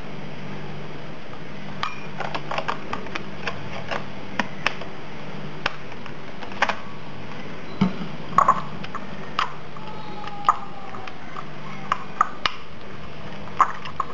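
Spoon clicking and scraping against a small glass bowl as a thick paste is stirred: irregular clinks, some in quick clusters, starting about two seconds in, over a steady low hum.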